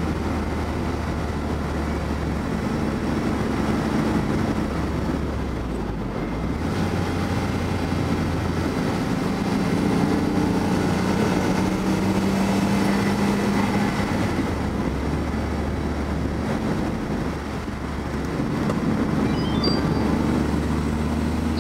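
Car engine and tyre noise heard from inside the cabin as the car laps a race track. The engine pulls louder partway through, then eases off briefly near the end.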